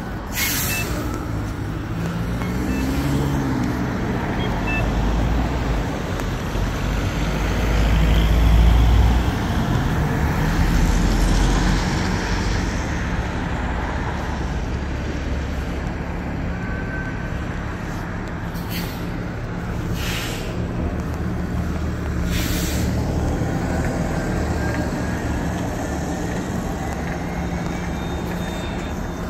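City street traffic at an intersection: a city bus drives through close by, its low rumble loudest about a third of the way in, over a steady traffic hum. A few short knocks come in the second half.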